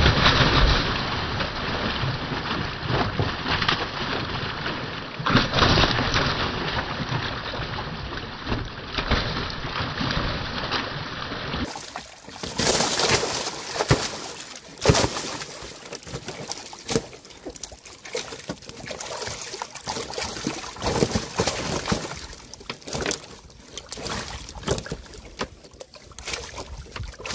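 Freshly netted fish thrashing in water held in a tarp-lined boat: repeated splashing and sloshing in uneven bursts, loudest at the very start and again about five seconds in.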